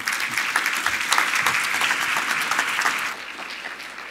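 Audience applauding at the end of a talk, many hands clapping, loud at first and dying away about three seconds in.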